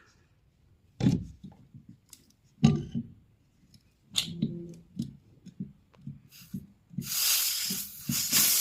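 Pliers snapping and crimping at the refrigerator's refrigerant tube with a few sharp clicks, then about seven seconds in a loud hiss of gas escaping from the opened line. The gas is only air drawn in through the leaking pipes: the refrigerant has fully leaked out.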